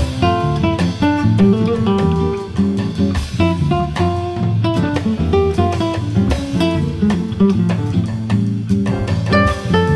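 Background music: plucked acoustic guitar playing a lively tune over a steady bass line.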